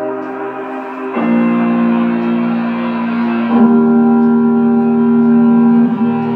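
Pop song playing through an LG 2.1-channel home theater speaker system, heard in the room: the intro's held chords, each ringing on and changing to the next about every two and a half seconds, before the vocals come in.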